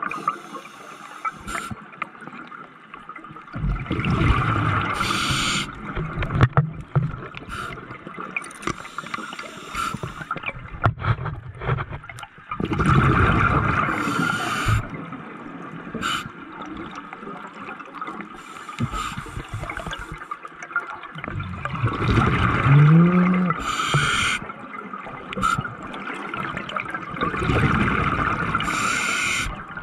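Scuba diver breathing underwater through a regulator: a long rush of bubbling exhaust on each breath out and a short hiss from the regulator, repeating about every eight seconds.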